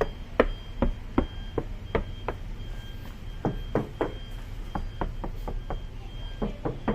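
A series of short, dull knocks on a car's sheet-metal body panel, about two to three a second. The panel is lined with a butyl-and-aluminium-foil damping mat, so the knocks sound solid rather than tinny.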